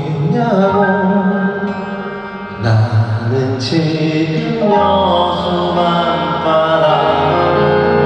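Live band playing a soft pop song, heard from the audience: keyboard and guitars with sung or chanted voices, two sharp hits around three seconds in, then a steady low bass note under a held chord.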